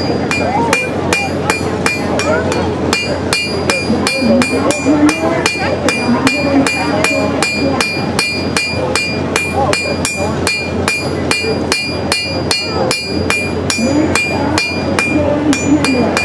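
A blacksmith's hand hammer striking a piece of metal held in tongs on an anvil in a steady rhythm, about three blows a second, the anvil ringing after each blow.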